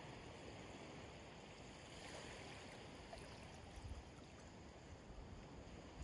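Faint trickling and lapping of very shallow, calm seawater washing over sand, swelling slightly about two seconds in.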